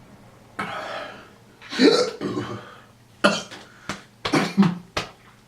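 A man burping several times in short bursts, with sharp hiccup-like catches in between. This is a reaction to the heat of a Bhut Jolokia chili pepper he has just eaten.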